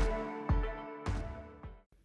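Background music with a steady beat, fading out and ending near the end.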